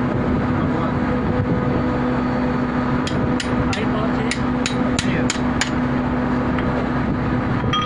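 A hand hammer striking metal on a screw compressor's casing as it is being opened: about eight quick blows, roughly three a second, starting about three seconds in. Under it runs a steady machinery hum with a low tone.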